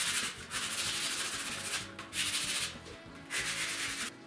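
Hand sanding block rubbed back and forth along a thin wooden strip in four long strokes with short pauses between them, stopping shortly before the end. Background music plays underneath.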